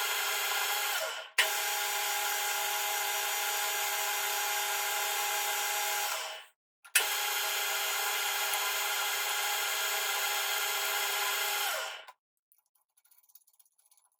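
Machine tool motor running steadily with a whine, in three runs of about five seconds each. Each run winds down quickly at its end, and the next starts abruptly with a sharp click.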